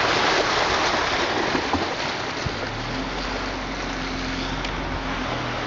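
A vehicle driving slowly onto a recycled-plastic bridge deck from a sandy road: steady tyre and road noise with a faint low hum, a little louder at the start and easing after about a second.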